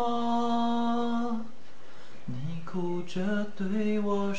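A man singing unaccompanied: one long held note, a break of about a second, then a run of shorter notes.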